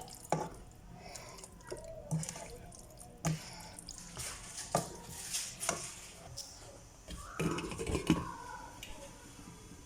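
Kitchen sounds: scattered clinks and knocks of utensils, with splashing water.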